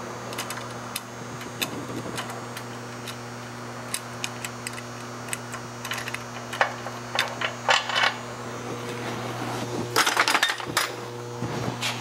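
Light metallic clinks and taps of a bolt and hand tools as the last bolt is worked out of the truck's drivetrain by hand. The clinks come scattered at first, then in two quicker flurries in the second half. A steady low hum runs underneath.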